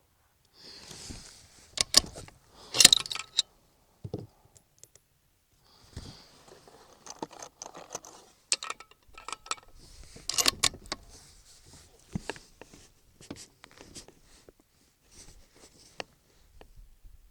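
Handling of a Savage Model 10 BA .308 bolt-action rifle between shots: a string of sharp metallic clicks and clacks with soft rustling in between.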